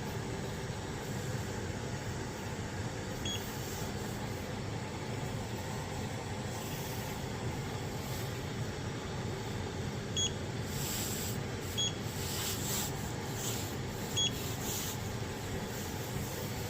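3D printer running: a steady fan whir, with a few short high beeping tones from the printer's stepper motors and some brief noisy movement sounds about two-thirds of the way through.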